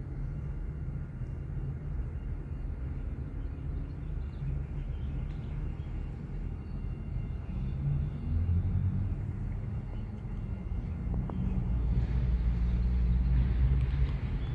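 Diesel freight locomotive engines running with a low, steady sound, getting louder over the last few seconds.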